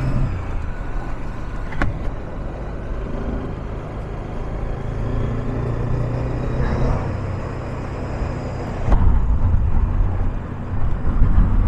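Motorcycle engine running steadily at low revs while riding a rough road, with wind noise on the microphone and two sharp clicks, about two seconds in and near the end.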